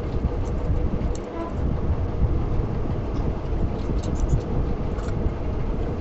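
Steady low rumbling noise throughout, with a few light clinks and scrapes of a steel spoon stirring chopped aloo kabli in a ceramic bowl, clustered about four to five seconds in.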